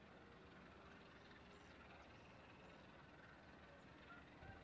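Near silence: faint outdoor ambience.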